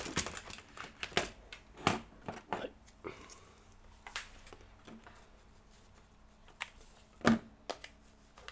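Scattered clicks and knocks of objects being picked up and moved about while searching for a charger, with one louder knock about seven seconds in.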